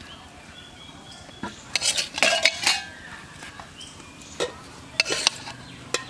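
Flat steel spatula scraping and clanking against a black wok and a plate while fried green banana is scooped out and served. A cluster of scrapes and clanks comes about two seconds in, then a few single sharp taps near the end.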